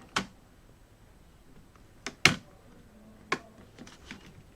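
A few sharp plastic clicks and taps, about four, the loudest a double click a little over two seconds in, as the laptop's integrated keyboard is lifted out of its top cover while its plastic studs are freed with a soldering iron.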